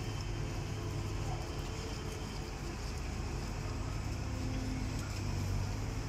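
Excavator diesel engine running with a steady low drone.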